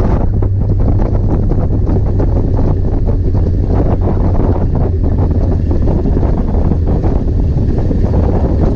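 Locost 7 kit car's engine running steadily with a low hum as the open car rolls slowly, with wind buffeting the microphone.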